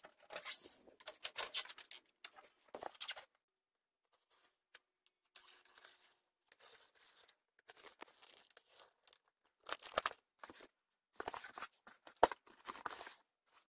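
Product packaging being torn and crinkled open by hand, in uneven bursts of scratchy rustling with short pauses between, and a sharp click a little after twelve seconds in.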